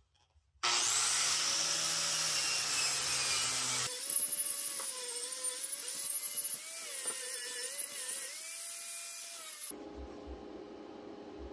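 Electric angle grinder with a knotted wire cup brush spinning up suddenly and wire-brushing a weld on steel tubing, with a steady high whine. About four seconds in it changes to an angle grinder grinding the weld, its pitch dipping and recovering as it is pressed into the steel. It stops near the end, leaving light handling knocks.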